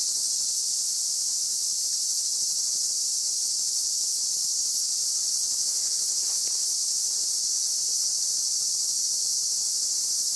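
Steady, high-pitched insect chorus buzzing without a break.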